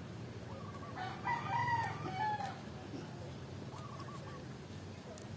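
A rooster crowing once, about a second in, with a shorter faint call a little later, over a steady low background hum.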